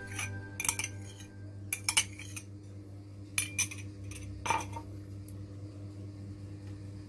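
A drinking glass and a plastic container clink and knock against each other and the tabletop as they are handled and set down. A few separate sharp clinks come in the first few seconds, the loudest about four and a half seconds in, over a steady low hum.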